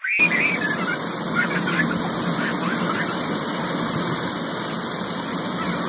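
Steady rushing, splashing water noise from children playing in a paddling pool, with faint children's voices in the first couple of seconds. It starts and stops abruptly.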